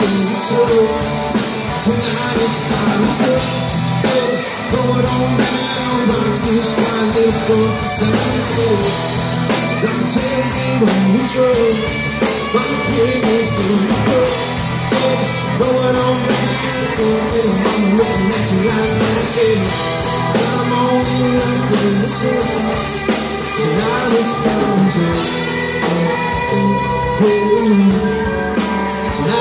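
A rock band playing live: electric guitars, a drum kit and keyboards under a sung lead vocal, with steady drum hits throughout.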